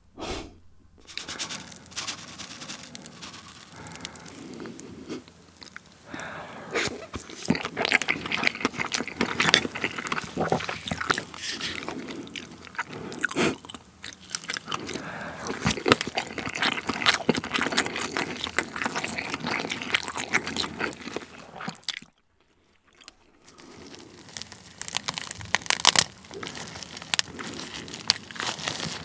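Close-miked mouth sounds of chewing a mouthful of rice with soy-marinated raw crab (ganjang-gejang): dense, wet clicks and crunches. A pause of about a second breaks them near the three-quarter mark.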